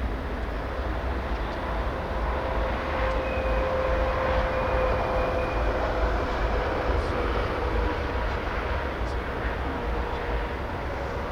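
Jet airliner engines running at takeoff power: a steady noise with a sustained whine that swells a little midway, with wind buffeting the microphone.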